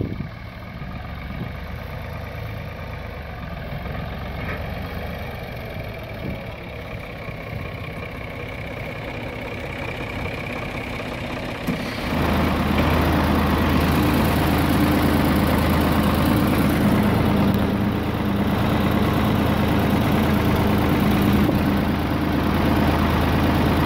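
Ford 4100 tractor's three-cylinder engine running steadily, heard from a distance at first; about halfway through it becomes much louder and closer, a steady low drone.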